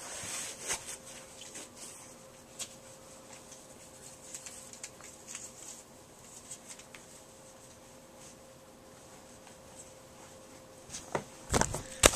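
Quiet room tone with a faint steady hum and scattered small clicks and rustles. About a second before the end come loud thumps and rubbing as the camera is picked up and moved.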